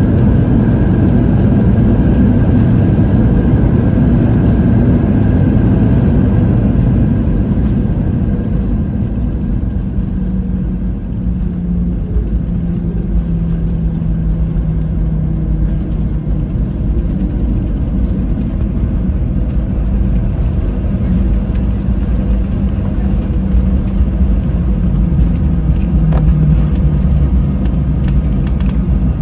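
Cabin noise of a Boeing 737-700 on its landing rollout: the CFM56-7B engines and the rumble of the wheels on the runway, a steady roar with a faint whine in it. It eases off somewhat about eight seconds in as the jet slows.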